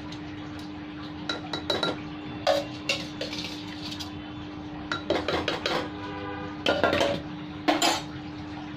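Spoon clinking and scraping against a bowl and a pressure cooker as washed moong dal is scooped into the cooker. The clinks come in irregular clusters over a steady low hum.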